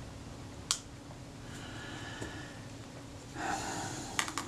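Quiet workbench sounds: a single light click about a second in, a short sniff-like breath in the second half, then a few quick light clicks near the end, as small metal camera parts are handled.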